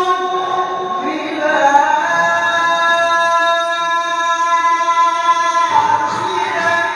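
A male qari reciting the Quran in the melodic tilawah style, amplified through a handheld microphone. Midway he holds one long, steady high note for several seconds before moving on to a new phrase.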